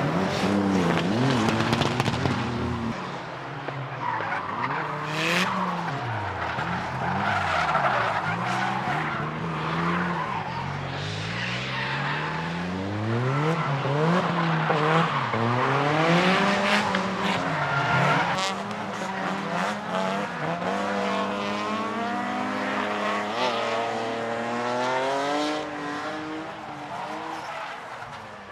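Drift car engine revving up and down again and again as the car slides sideways, with tyres skidding and squealing; the sound fades near the end.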